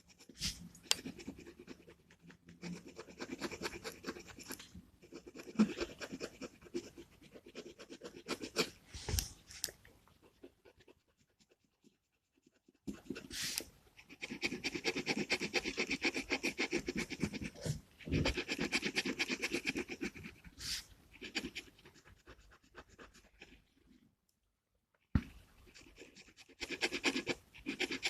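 Gel pen scratching on paper in quick back-and-forth colouring strokes, in spells broken by two short pauses.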